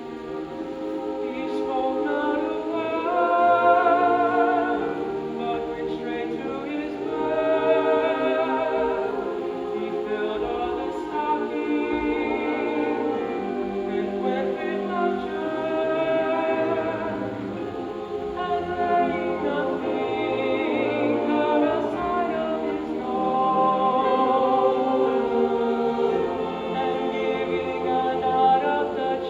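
A choir singing in harmony, with held notes and vibrato, continuous music with no speech.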